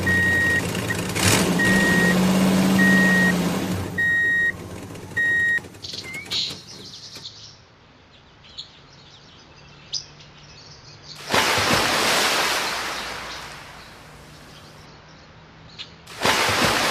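Vehicle reversing alarm beeping five times at even intervals over a low engine hum, which stops after about five seconds. Then come faint clicks and splashes, and a loud rushing hiss about eleven seconds in and again near the end.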